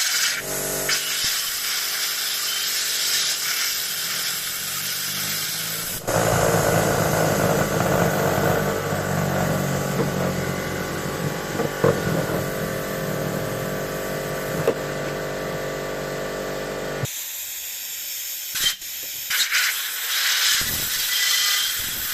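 Compressed air hissing through a 3D-printed Tesla turbine, its rotor of stacked hard-drive platters spinning with a steady whine over the hiss. About six seconds in, the air and the whine grow louder and fuller. About seventeen seconds in they cut off suddenly, leaving a few short puffs of air.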